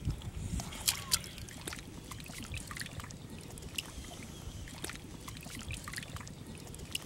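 Hands patting and smoothing wet mud in shallow water, with small sloshes of water and scattered short wet clicks, two of them louder about a second in.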